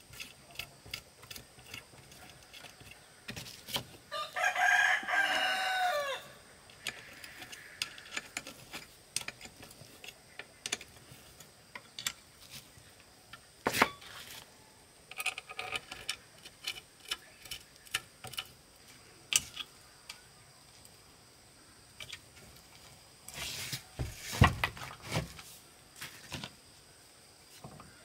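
A rooster crows once, about four seconds in, a call lasting about two seconds. Scattered sharp clicks and taps run throughout, with a cluster of louder knocks near the end.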